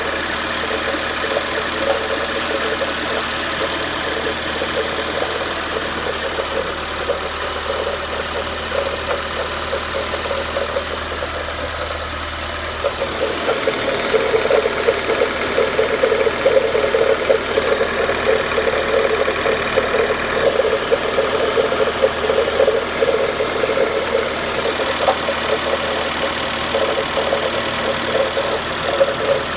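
Renault Duster engine idling on a cold warm-up, with the knocking that shows up while it is still cold. About halfway through, the low hum drops away and the knocking clatter gets louder and more uneven.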